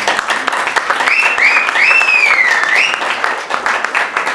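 Audience applauding, with someone whistling about a second in: two short rising whistles, then a longer one that dips and rises again.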